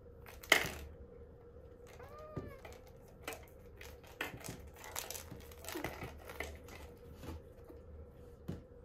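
Kittens scuffling in a carpeted cat-tree bowl with a clear plastic window: a sharp tap about half a second in, one short kitten mew about two seconds in, then scattered paw taps and claw scratches on the plastic and carpet.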